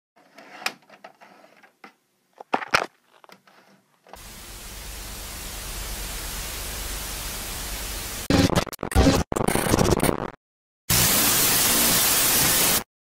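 VHS tape static: a few faint clicks and rustles, then a steady hiss that slowly grows louder. Near the end it breaks into choppy, stuttering glitches, drops out briefly, and returns as a loud even hiss that cuts off suddenly.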